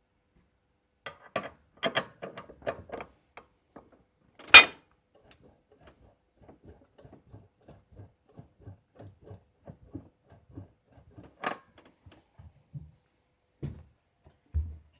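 Car steering creaking and clicking as the wheel is turned: a cluster of sharp clicks, one loud click a little before halfway, then a run of fainter, fairly even clicks. This is the squeak the steering makes on turning, a sign of a dry or worn part in the steering or front suspension.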